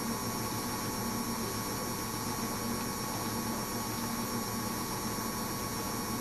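Soba front-loading washing machine in the final spin of its wool programme, held at a steady 500 rpm: an even motor hum that does not rise or fall.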